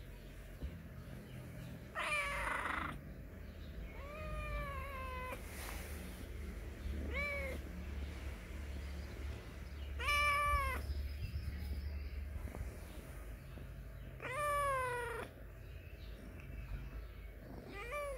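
Domestic cat meowing repeatedly: about six drawn-out meows a few seconds apart, each rising and then falling in pitch, the loudest about ten seconds in.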